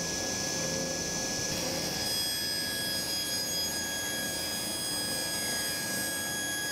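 Table saw running with a steady high whine while a wooden panel is crosscut on a sliding table.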